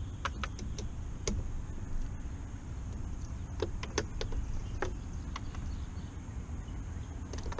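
About a dozen light clicks and taps of hand tools and small parts as someone works on the carburetor side of a Mariner 40 hp two-stroke outboard's powerhead, over a steady low rumble.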